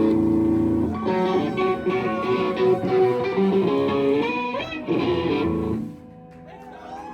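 Live rock band with electric guitars playing the closing bars of a song: a held chord, then bent lead-guitar notes over bass, with the full band stopping about six seconds in and leaving quieter ringing notes.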